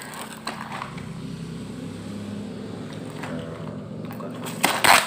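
A taped paper parcel wrapper being handled and pulled open, with a loud crinkling tear near the end. A steady low hum runs underneath.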